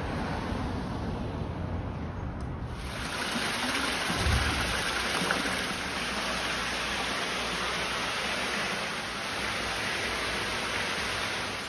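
Steady rush of running water in a tiled bathhouse, coming in suddenly about three seconds in over a low rumble.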